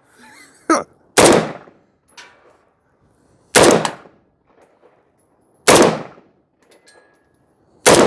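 Galil rifle in 5.56 firing four single semi-automatic shots about two seconds apart, each a sharp crack with a short echoing tail. Faint small ticks between the shots are the ejected brass casings striking the building and concrete.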